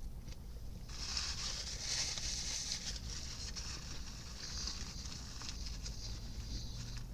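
Crunching and chewing of a crispy fried chicken sandwich close to the microphone, a dense crackle that starts about a second in, over a steady low hum.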